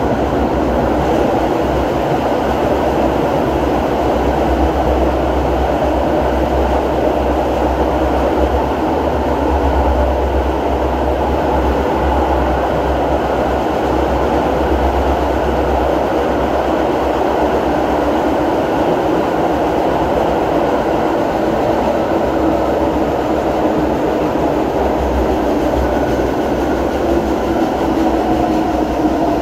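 Brasília Metro series 1000 electric multiple unit running at speed, heard from inside the passenger car: a steady, loud rush of wheel and running noise with a low rumble underneath.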